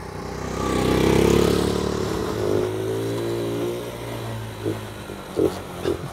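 Small single-cylinder engine of a Honda Monkey-style paddock bike revving up about a second in, then running steadier and getting quieter, with a few short blips near the end.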